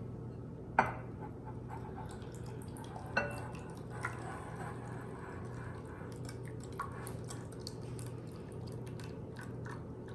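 Wire whisk clinking and ticking against a glass mixing bowl while milk is poured in from a glass measuring cup and whisked into a thick soup base, with one sharp clink about a second in.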